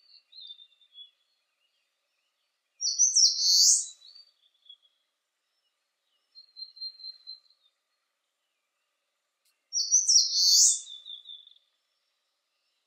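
Eastern crowned warbler singing: two short, high song phrases about seven seconds apart. Fainter, lower bird notes come between them.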